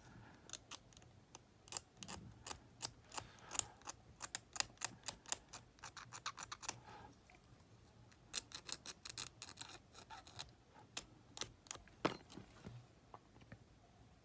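A small hand tool scraping corrosion off a corroded conductor strip in a Sony Walkman WM-600 battery box. It goes in quick, short scratchy strokes, several a second, in two runs with a pause of about a second between them.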